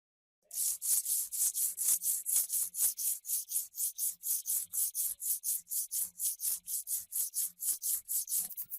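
Fast back-and-forth hand strokes of abrasive work on the hammer, about five scraping strokes a second, starting about half a second in.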